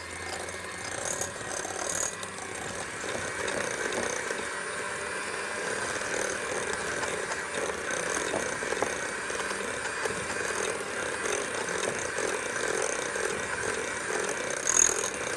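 Electric hand mixer running steadily, its beaters creaming butter and sugar in a glass bowl. A brief sharp click comes near the end.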